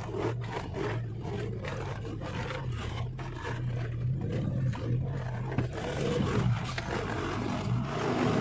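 Heavy truck's diesel engine running with a steady low drone, with frequent knocks and rattles as it drives over a very rough, slippery road.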